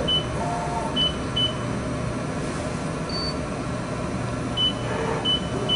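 About seven short, high beeps at uneven spacing, each the touch-trigger probe signalling a contact point as it probes the bottle neck. They sound over a steady low hum from the machine.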